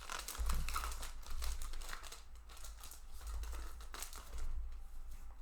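Foil booster-pack wrapper crinkling as it is handled and opened, a run of irregular crackles.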